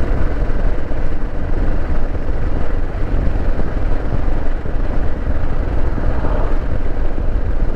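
Kawasaki KLR 650 motorcycle's single-cylinder engine running steadily, with a heavy low rumble.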